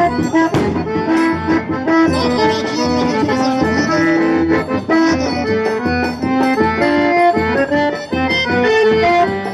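Accordion-led forró music with a steady beat underneath.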